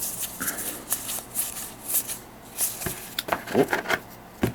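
Magic: The Gathering trading cards being flipped through by hand: a run of quick, irregular papery swishes as card slides over card, with a couple of soft thumps.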